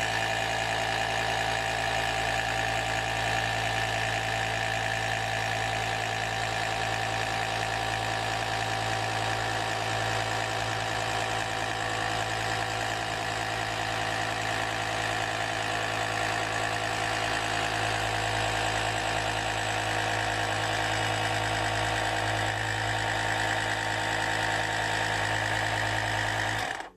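The built-in electric air compressor of an UltimateSpeed UPK 10 C1 power bank runs with a steady, even hum, pumping up a soft football. It cuts off near the end.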